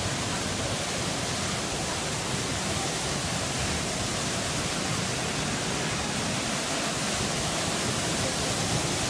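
Waterfall pouring down a cliff onto rocks, a steady rushing of falling water.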